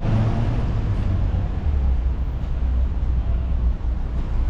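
Street traffic noise: a low, steady rumble of passing cars, heaviest from about one and a half seconds to nearly four seconds in.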